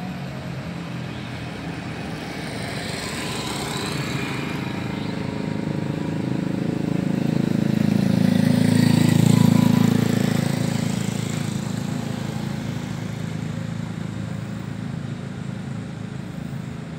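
Road traffic: a motor vehicle passing by, its engine and tyre noise swelling to a peak about nine seconds in and then fading away.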